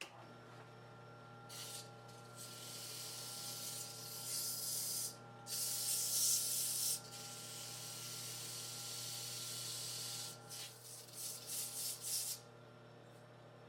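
Wood lathe running with a steady hum while sandpaper is held against the spinning wood, a hissing rub that comes and goes in several passes, the loudest about six seconds in. Near the end come a few short quick strokes, then only the lathe's hum.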